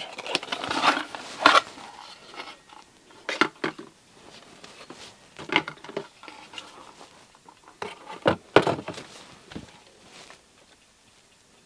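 Cardboard packaging rustling and scraping as a box's end flap is opened and a metal ball joint separator fork is slid out and handled, with scattered sharp clicks and knocks; it goes quiet near the end.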